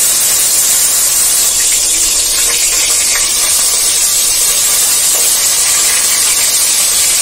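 A piece of fish frying in hot oil in a kadai: a loud, steady sizzle.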